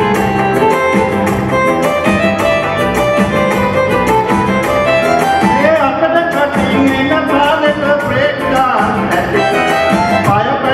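Baila song performed on stage: a man sings into a microphone over a musical accompaniment with a steady, regular beat.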